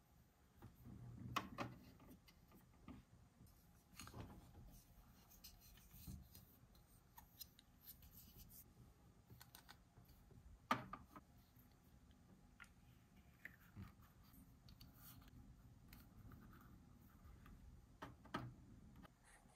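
Small plastic toy pieces handled and set down on a plastic playhouse: a few quiet, scattered clicks and taps over faint rustling, the sharpest about eleven seconds in.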